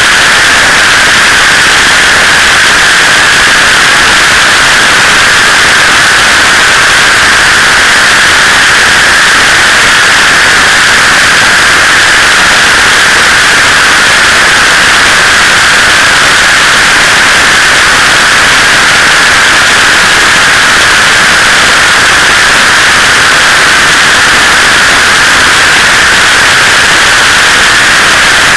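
Loud, steady rushing hiss of wind and road noise on a camera mounted on a motorcycle at highway speed. It is even and unbroken, with no engine note standing out.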